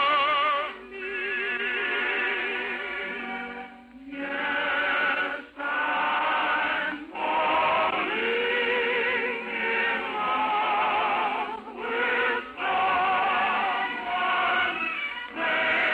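A choir singing with strong vibrato over orchestral accompaniment, in sustained phrases broken by brief pauses. It comes from an old radio transcription, with the top end cut off above about 4 kHz.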